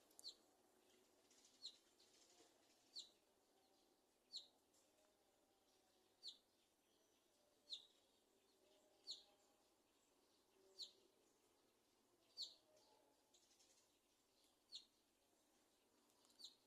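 A small bird chirping: about a dozen short, high chirps, one every second or two.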